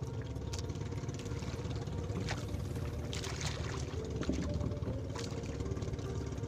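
Outrigger fishing boat's engine idling steadily, with a few brief clicks over it.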